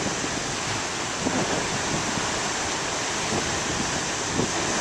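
Ocean surf on a beach: a steady rush of breaking waves.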